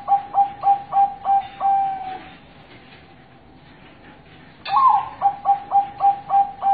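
Zebra dove (perkutut) singing. One song phrase ends in a run of short, clipped coos and a longer drawn-out final note. After a pause of about two and a half seconds, a new phrase opens with a higher first note and goes into another quick run of short coos.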